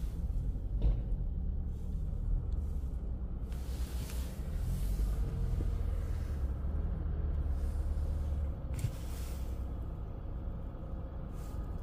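Low, steady rumble of a fire engine running, with a few short bursts of hiss; the rumble eases about eight and a half seconds in.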